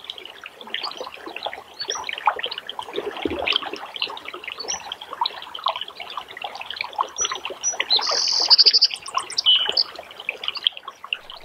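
River water flowing and burbling around a wading angler, with birds chirping on and off. A rapid high bird trill about eight seconds in is the loudest sound.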